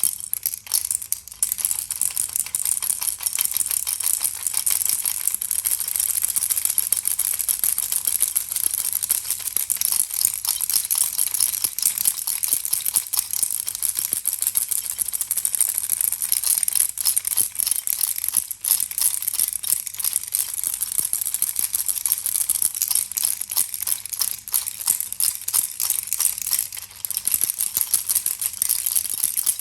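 Baby rattle being shaken steadily: a dense, fast, bright clatter. It breaks off briefly about 19 seconds in and again about 27 seconds in.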